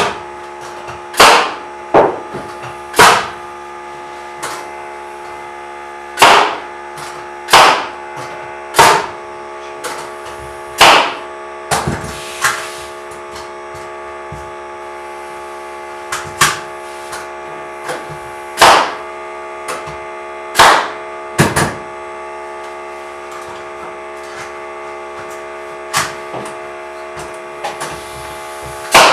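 Pneumatic nail gun firing nails into the wooden loft framing: about fifteen sharp shots, one every second or two with a pause of a few seconds, over a steady hum.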